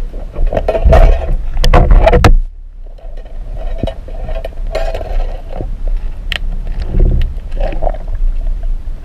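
Muffled underwater rushing and rumbling of water moving against a camera housing as a diver swims, with scattered sharp clicks and knocks. The noise is loudest in the first two seconds, cuts off abruptly for about half a second, then returns steadier.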